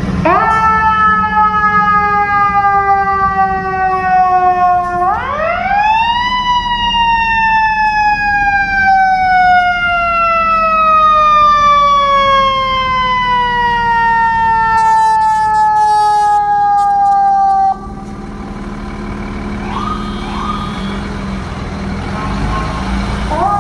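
Fire truck siren wailing: it winds up, falls slowly, climbs again about five seconds in, then slides down over about twelve seconds and cuts off suddenly. Short rising chirps follow, and it starts rising again near the end, over the low rumble of the truck's engine.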